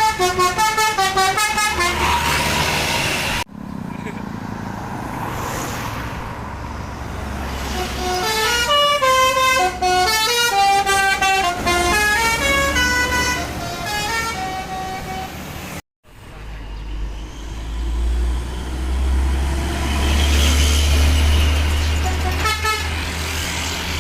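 Tour bus 'telolet basuri' multi-tone musical horns playing quick melodies of short stepped notes, over the bus engine running. The melodies come in spurts, at the start and again for several seconds mid-way, with abrupt cuts between clips.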